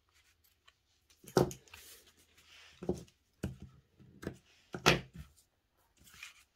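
Large scissors snipping loose threads from the edge of a journal, with several sharp knocks and clacks of the scissors and journal against the table, the loudest near the end.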